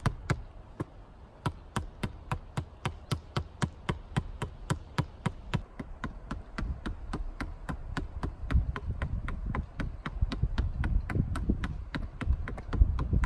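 Netball tapped quickly one-handed against a painted concrete-block wall: a steady run of sharp taps, about four a second. A low rumble builds under the taps in the second half.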